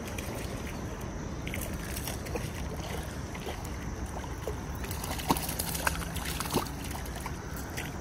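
Hooked brown trout splashing and thrashing at the surface of a shallow creek, over a steady rush of water. A few sharper, louder slaps come a little past halfway.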